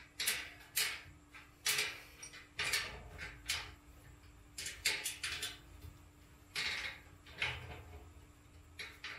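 Snack shelf being assembled by hand: about a dozen short rasping and clattering sounds at irregular intervals as the parts are handled and fastened.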